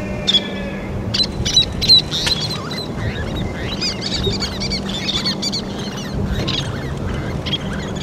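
Least terns calling: many short, high chirping calls that come thick and fast, busiest in the middle, with a few sharp clicks near the start. A steady low hum runs underneath.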